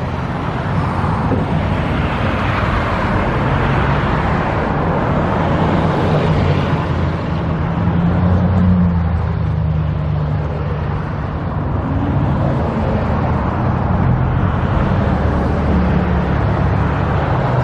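Motor vehicle engines running and passing on the road, a steady low hum whose pitch shifts a few times.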